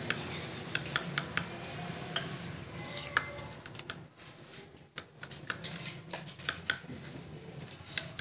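A spoon stirring yogurt in a glass bowl, clinking irregularly against the glass, with a quieter stretch about halfway through.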